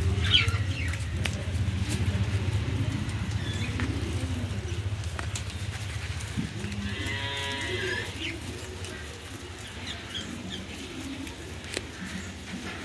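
A cow moos once, about seven seconds in, a call of about a second, over a steady low hum and scattered light clicks.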